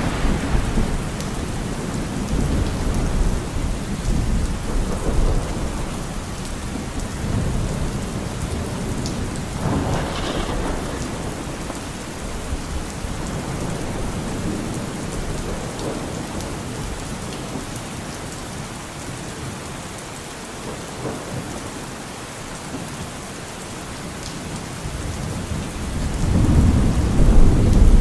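Steady rain falling, with rolling thunder: a rumble dying away in the first seconds, another about ten seconds in, and a louder one building near the end.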